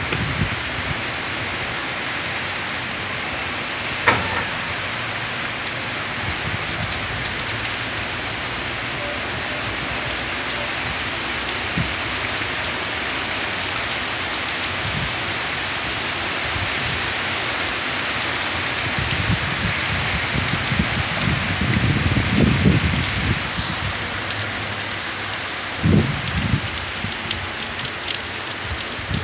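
Heavy rain falling steadily on grass and a wet paved path, an even hiss throughout. About two-thirds of the way through come several seconds of low rumbling, then a shorter one near the end.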